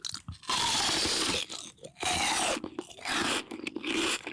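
A run of crunching sounds, several bursts about one a second.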